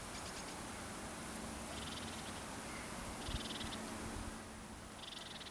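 Short, high, rapid trills from a calling animal, repeating about every second and a half, over a faint steady outdoor hiss.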